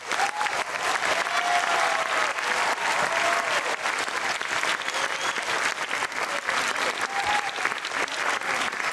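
Audience applauding steadily, with a few voices faintly audible over the clapping.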